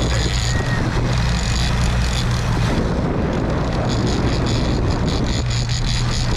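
Boat engine running steadily as a low hum, with wind noise on the microphone.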